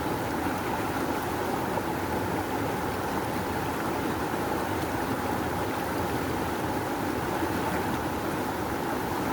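Rushing river water flowing steadily, a constant dense rush with no breaks or separate splashes.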